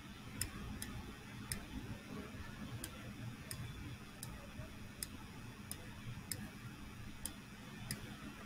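Computer mouse clicking, about a dozen short sharp clicks at uneven spacing, roughly one every half second to second, over a faint steady hum.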